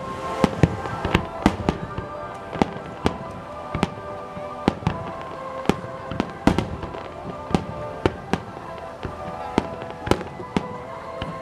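Fireworks display going off: a steady run of sharp bangs, two or three a second, over music playing in the background.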